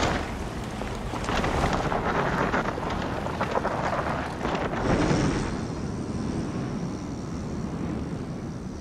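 Mountain bike tyres (Kenda Hellkat Pros) rolling and tearing through tacky forest dirt at speed, a continuous rush that swells twice as the bike passes through turns, then drops to a quieter airy hiss for the last few seconds as the bike leaves the ground.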